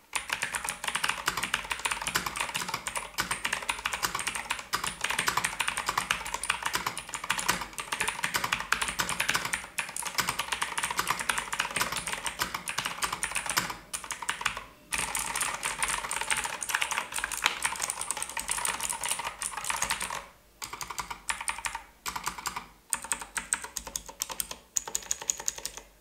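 Typing test on an E-Dra EK3104 full-size mechanical keyboard fitted with thick PBT DSA-profile keycaps: a fast, dense run of key clacks with a few brief pauses. The sound is fairly deep and not shrill, and the stabilized long keys such as Shift and Enter rattle little.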